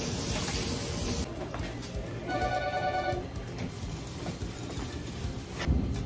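A steady hiss that cuts off about a second in, then a short electronic chime, a steady multi-note tone lasting about a second. A few sharp clicks follow near the end.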